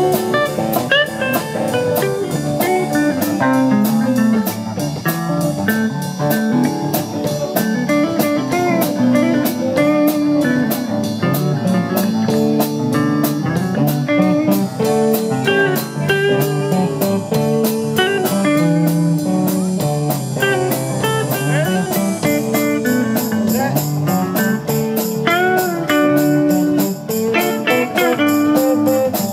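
Live rock band playing an instrumental jam: electric lead guitar with bent notes over a second electric guitar, bass and a drum kit keeping a steady cymbal pattern.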